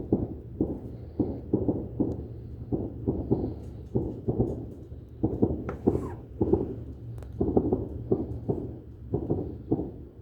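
Rapid, irregular run of dull, distant bangs, roughly two a second, over a steady low rumble; their source is unknown.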